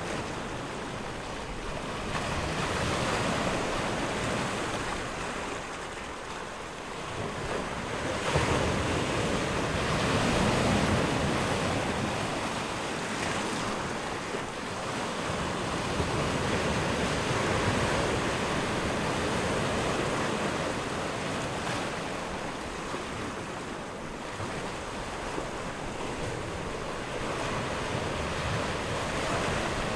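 Wind blowing across the microphone: a steady rushing noise that swells and eases every few seconds.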